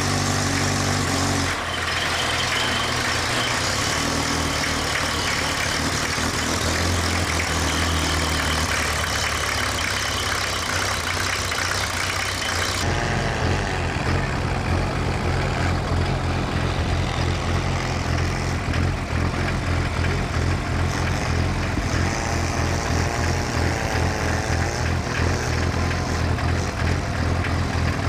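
Snowcat's diesel engine running steadily. About 13 seconds in, the sound changes to a deeper, quickly pulsing diesel chug.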